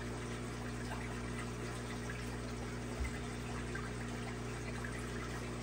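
Aquarium filtration running: a steady trickle of moving water over a low hum, with one soft knock about three seconds in.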